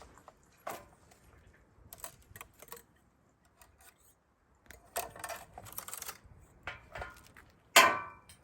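Thin 20-gauge wire being handled, with light clicks and rustling, then a loud sharp snip near the end as the wire is cut with snips.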